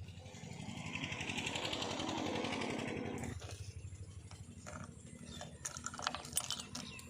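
Diesel engine of working earthmoving machinery running with a steady low chug, swelling louder for a couple of seconds and then dropping back about three seconds in, followed by several sharp metallic clanks and knocks near the end.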